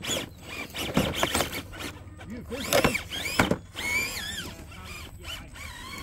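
Small electric motor of a scale RC crawler truck whining in short bursts, its pitch rising and falling, with several sharp knocks of the tyres and chassis against rock as it tries and fails to climb through the boulders.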